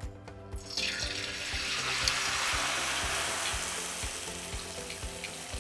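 Rice paper deep-frying in hot oil in a stainless steel pan: a sudden sizzle about a second in as the paper hits the oil and puffs up, then gradually dying down. Background music with a steady beat underneath.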